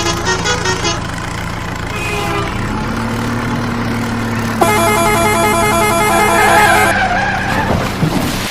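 Vehicle engine sound effect: a steady drone that rises in pitch about two and a half seconds in, with a held horn-like tone from about four and a half to seven seconds in.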